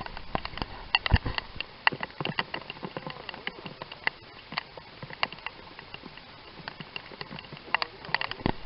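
Irregular sharp taps of raindrops hitting a hard surface close to the microphone, with a dull thump about a second in.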